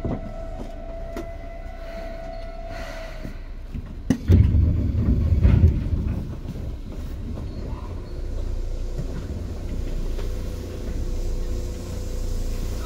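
Seibu 2000 series commuter train heard from on board. A steady whine stops about three seconds in. Just after four seconds there is a sharp knock and about two seconds of loud low rumbling, then a steady running rumble with faint whines.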